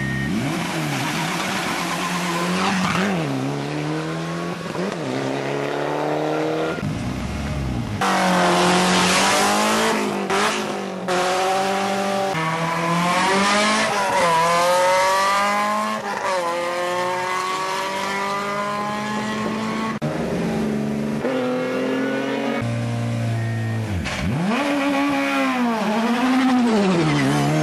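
Competition cars' engines revving hard and accelerating away under full throttle, several cars one after another. The engine note climbs and drops back again and again through the gear changes.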